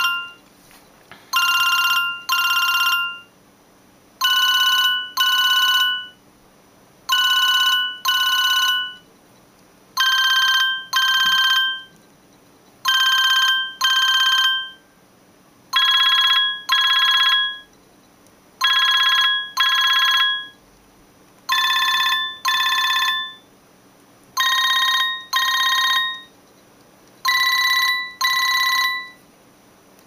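Siemens C65 mobile phone playing one of its built-in ringtones: a telephone-style double ring, two short electronic trills repeated about every three seconds, with the higher notes creeping upward in pitch from one ring to the next.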